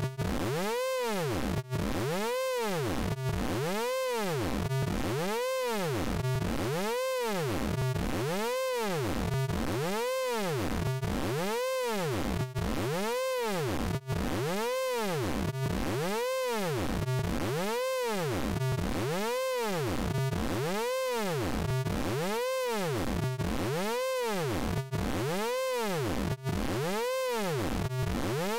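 Synthesized vocoder sound effect from the Orange Vocoder plugin, looping without a break. It is a buzzy pitched tone that sweeps up and back down about once every 0.8 seconds, in a steady repeating wobble with a few momentary dropouts.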